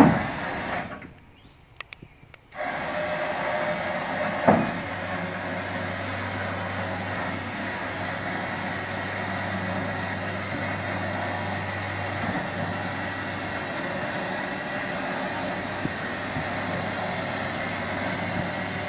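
Homemade hitch-mounted motorcycle loader's lift drive running steadily as it raises a touring motorcycle onto the back of a pickup, with a single clank about four and a half seconds in. The sound drops out briefly about a second in.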